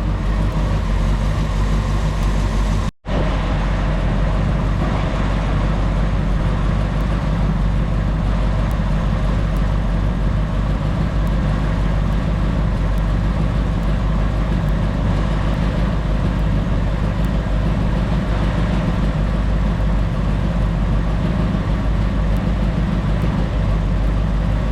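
1967 Ford Thunderbird's 390 FE V8 idling steadily and evenly, running smoothly just after firing right up. The sound drops out for a split second about three seconds in.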